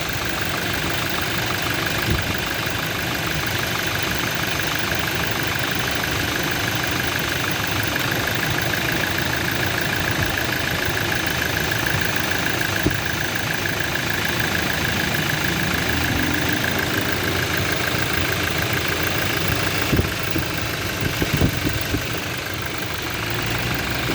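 Toyota Innova's diesel engine idling steadily with a busy mechanical clatter, heard close in the open engine bay, with a few brief knocks near the end. The mechanic judges that the injectors are no longer atomizing their spray and that there is knocking at cylinders 2 and 4, plainest through a stethoscope.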